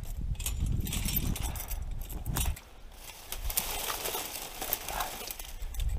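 Dry brush, twigs and dead leaves crackling and rustling as someone moves through them and handles stakes, with a low rumble on the microphone in the first couple of seconds.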